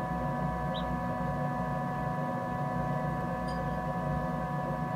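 Steady electrical hum of an egg incubator's fan running, with a few fixed whining tones over a low drone. Two faint, very short high chirps come through, one about a second in and another about three and a half seconds in.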